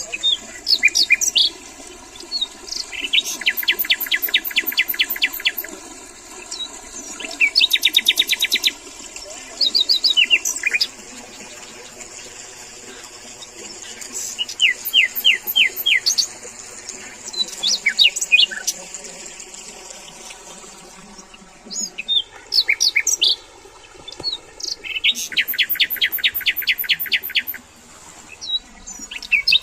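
Wild birds singing: bursts of rapid trilled notes every few seconds, mixed with short chirps and whistles. A steady high-pitched hiss runs under them and stops about two-thirds of the way through.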